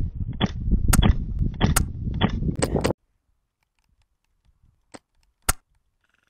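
Airsoft guns firing a string of sharp, snapping shots about two a second over rumbling wind and handling noise, which cuts off abruptly about three seconds in; two more single shots crack out near the end.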